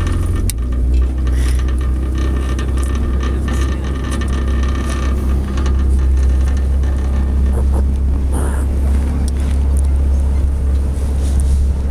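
Pontoon boat's outboard motor running under way, a steady low drone that settles slightly lower about half a second in.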